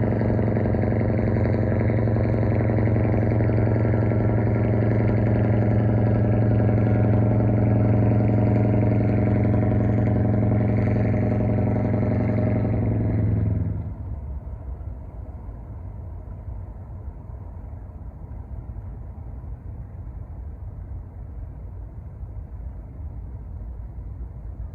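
A ship's engine running with a steady, even hum. About fourteen seconds in it drops suddenly to a fainter low rumble and hiss.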